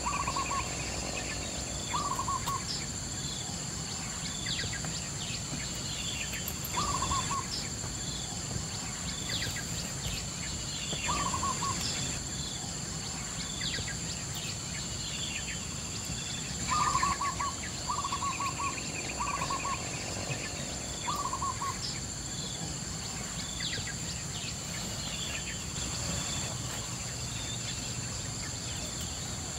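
Forest birds calling: one bird gives a short low call of a few quick notes every few seconds, with four in quick succession in the middle, while smaller birds chirp higher up. A steady high insect drone runs underneath.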